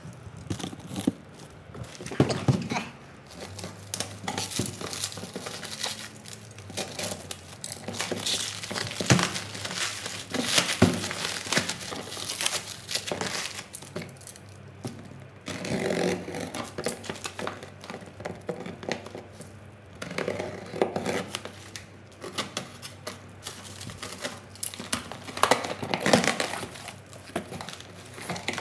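Clear plastic wrapping and bubble wrap crinkling and tearing as they are pulled and cut off a cardboard-boxed package, in irregular rustling spells full of small crackles.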